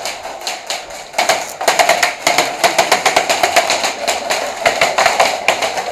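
Airsoft guns firing in rapid automatic bursts, a fast, loud rattle of shots with short gaps between strings.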